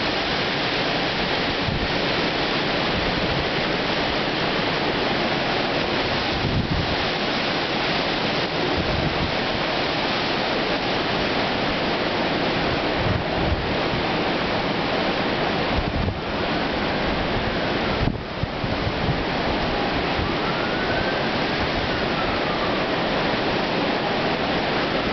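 Hurricane-force wind blowing hard and steadily through trees, a constant rush with gusts buffeting the microphone. In the second half, faint sirens wail up and down a few times.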